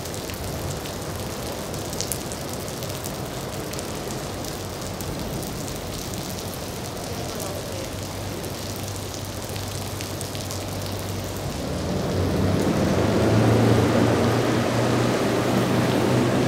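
Rain falling with a steady hiss and fine pattering, under the low hum of a Mercury outboard motor on a small center-console boat. The motor grows louder about twelve seconds in as the boat throttles up and gets on plane.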